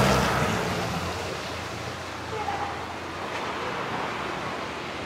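Motorcycle engine fading away just after passing close by, dying down over the first couple of seconds and leaving a low steady road ambience.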